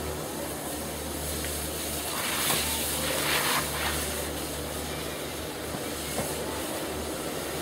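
Steady rushing wind noise on an outdoor camera microphone, with a low broken rumble. A louder hiss swells for a couple of seconds partway through.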